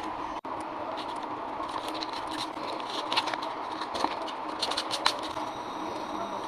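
Steady rain falling, with scattered small clicks and taps over it.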